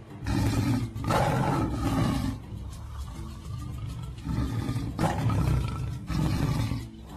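Channel-intro sound effects: several loud, drawn-out bursts with a deep rumble underneath, about a second or more each, with a quieter stretch in the middle.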